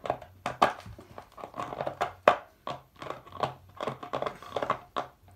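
A dog chewing and pawing a plastic water bottle: the thin plastic crackles and crunches in irregular sharp snaps several times a second, with the loudest crunch about two seconds in.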